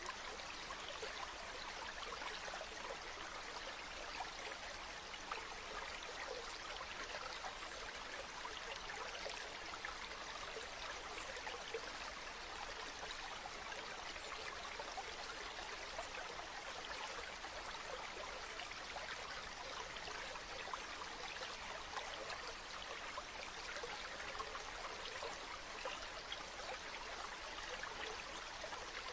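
Running water: a steady, unbroken rush with fine crackle and trickle in it, holding an even level throughout.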